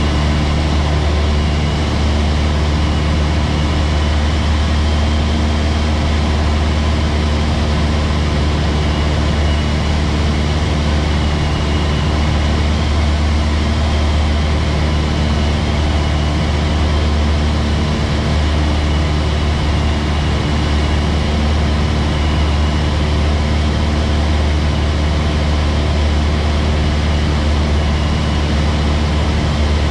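Cessna 172's piston engine and propeller heard inside the cabin in flight: a loud, steady drone with a low hum and a hiss of air over the airframe, unchanging throughout.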